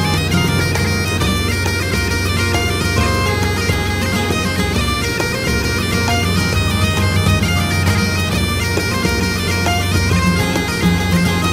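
Bagpipe music: a melody of short stepped notes over a steady low drone.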